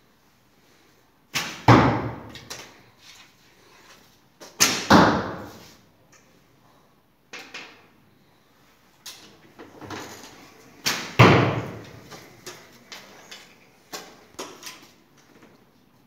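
Three arrows shot from a recurve bow: each time a snap of the released string is followed about a third of a second later by a louder thud of the arrow hitting the target, echoing in the large hall. Quieter knocks come between the shots.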